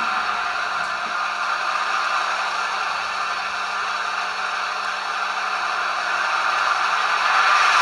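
A model locomotive's LokSound sound decoder plays a Napier Deltic diesel engine sound through its small onboard speaker. The engine sound runs as a steady whirring hum and grows louder about seven seconds in.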